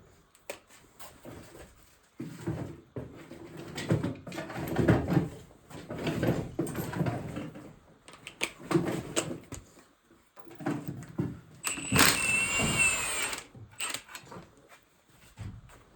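Knocks and clatter of tools and metal parts being handled on a workbench, in uneven bursts. About twelve seconds in comes a louder stretch with a high wavering squeak lasting about a second and a half.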